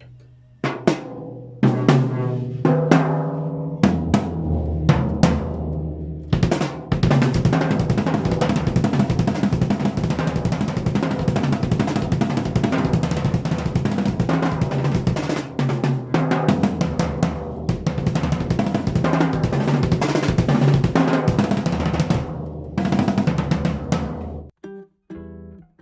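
Yamaha Stage Custom drum kit played on its old, well-worn factory heads: a few single drum strikes that ring out, then about sixteen seconds of a full beat with cymbals and bass drum, ending in a few scattered hits.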